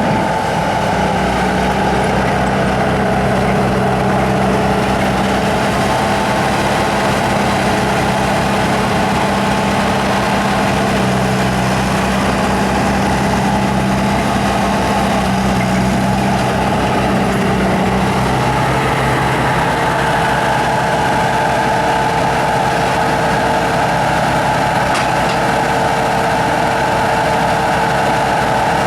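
Bobcat T300 tracked skid steer's diesel engine running steadily, with a shift in its tone about two-thirds of the way through.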